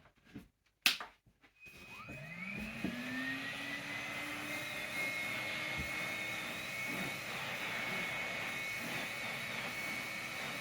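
A click about a second in, then a Numatic Henry Cordless vacuum cleaner's motor spins up with a rising whine and settles into steady running as it vacuums the carpet with its upholstery nozzle.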